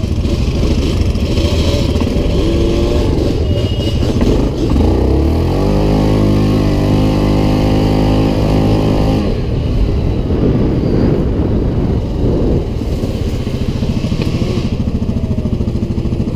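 Quad bike engine running hard on a dirt trail, revving up about five seconds in and holding a steady pitch for a few seconds before dropping back to rougher, uneven running.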